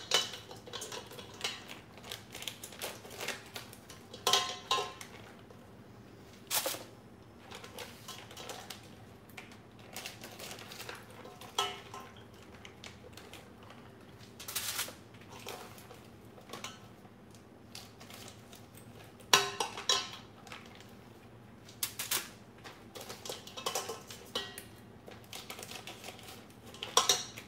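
Kitchen clatter: stainless steel mixing bowls and dishes knocking and clinking, with plastic packaging crinkling, as raw fish pieces are unwrapped and handled. A dozen or so short, sharp knocks come at irregular intervals, a few ringing briefly.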